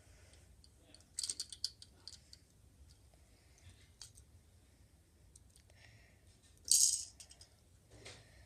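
Small plastic Lego pieces clicking and rattling as a Lego City 60118 front-loader garbage truck and its trash bin are handled by hand. A quick cluster of clicks comes about a second in, and a louder short rattle comes near the end.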